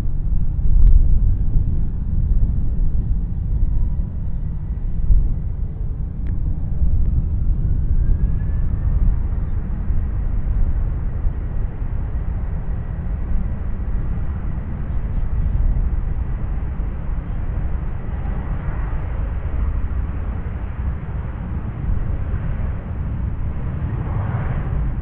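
Jet airliner on approach to land, a steady low engine rumble with a faint thin whine above it.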